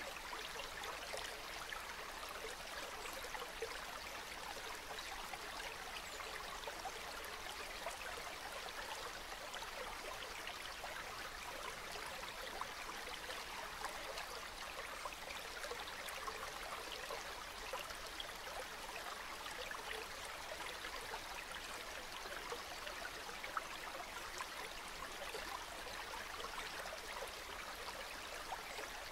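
River water flowing steadily, an even babble of small gurgles and splashes with no pauses.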